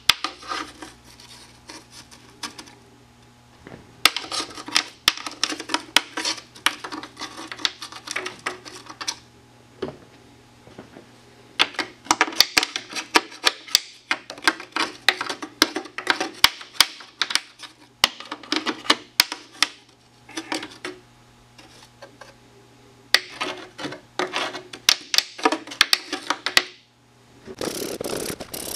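Rapid clicking and rattling of small loose metal bits in several bursts, as aluminium drill shavings and drilled-out rivet pieces are cleared out of a snowmobile's aluminium tunnel. Near the end, a trigger spray bottle hisses in a few quick squirts.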